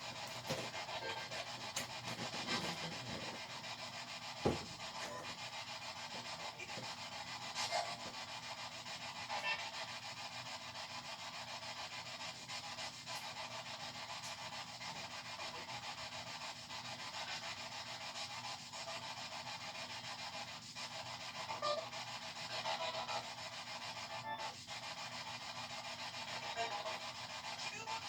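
Steady hiss with a few faint clicks and one sharper click about four and a half seconds in.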